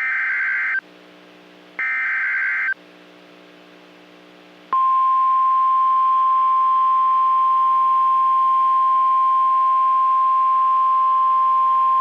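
Two bursts of a NOAA Weather Radio SAME (Specific Area Message Encoding) header, the short buzzy data bursts that encode an alert, about a second apart. About five seconds in, the steady 1050 Hz warning alarm tone starts and holds: the signal that a warning, here a tornado warning, is about to be read.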